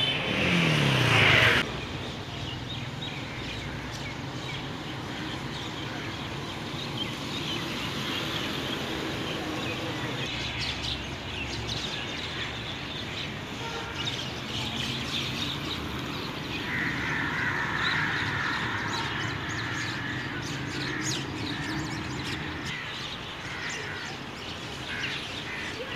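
Outdoor ambience: birds chirping over a steady background of distant traffic. In the first two seconds a loud sound slides down in pitch and then cuts off abruptly. The electric bicycle's hub motor is not heard.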